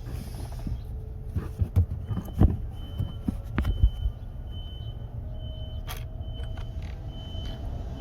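Handling noise from an inspection camera being worked down a spark plug hole: scattered sharp clicks and knocks, bunched about one to four seconds in, over a steady low rumble, with a faint high tone switching on and off.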